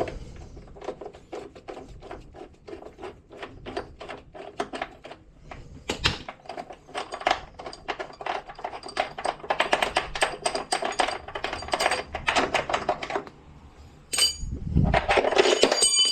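Rapid, fairly even clicking, several clicks a second, from the hand-worked plastic parts of a boiler's condensate neutralizer, followed near the end by a louder scrape with a thin squeak.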